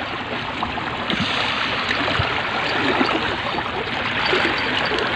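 Sea water washing against a rocky jetty: a steady rushing noise.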